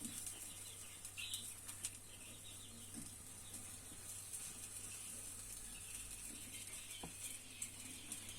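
Faint, steady sizzle of a thick cheese paratha cooking on a hot tawa over a low flame, with a few soft ticks.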